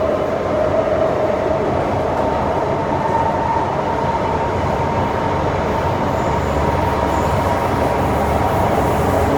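MTR Metro-Cammell M-Train electric multiple unit running steadily, its wheels on the rails making a dense rumble under a steady whine.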